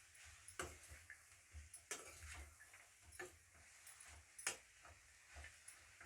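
Metal spatula tapping and scraping against a kadai while stirring frying radish leaves: a few sharp taps at an even pace, about one every second and a half, with softer scrapes between.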